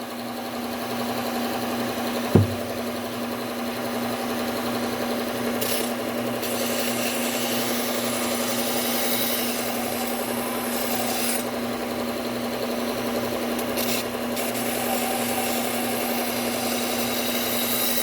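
Bucktool low-speed belt sander running with a steady hum while the broken tip of a Henckels chef's knife is ground back on a Cubitron P120 belt to reprofile it. There is a single sharp knock about two seconds in.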